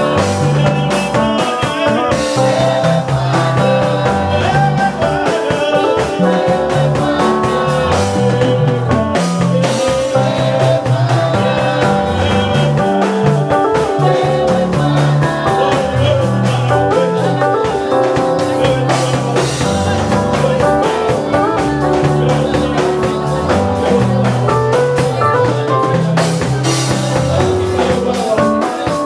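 Live worship music: women singing a Swahili praise song into microphones, backed by a band with guitar and a drum kit keeping a steady beat.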